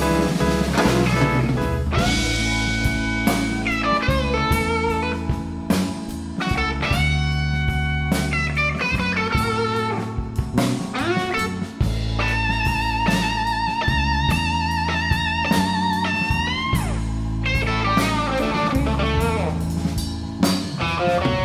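Blues electric guitar solo over bass, drums and keyboard, the guitar played through a Divided By 13 RPB amp: bent notes sliding up into pitch, and past the middle a long held note with wide vibrato before the line moves on.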